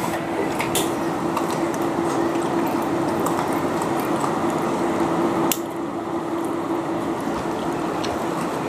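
Wet, squishy eating sounds of a roasted chicken leg being torn apart by hand and chewed, with small scattered clicks, over a steady background hum and hiss. About five and a half seconds in there is a sharp click and the background drops a little.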